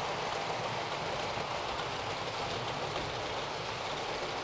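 Model trains, an HST 125 and a Western Pullman set, running around a model railway layout: a steady, even noise of wheels and motors on the track.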